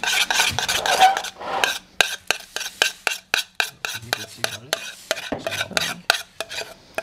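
A spoon stirring and scraping in a small stainless-steel saucepan of thick, sticky starch bioplastic mixture. Quick, irregular clinks and scrapes of metal on metal run throughout.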